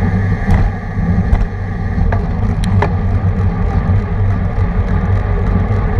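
Wind buffeting a bicycle-mounted action camera at racing speed, a steady low rumble mixed with road and tyre noise, with a few sharp clicks in the first three seconds.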